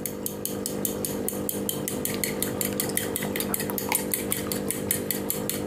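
Raw eggs being beaten in a glass bowl with a metal utensil: fast, even clicking of the utensil against the glass, about six or seven strokes a second.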